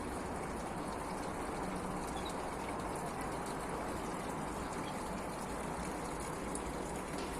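Small artificial waterfall and fountain in a bird aviary, water splashing and running steadily.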